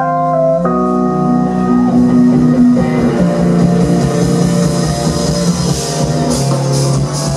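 A live jazz-fusion band playing: held keyboard chords over bass and drums, with the cymbals growing busier near the end.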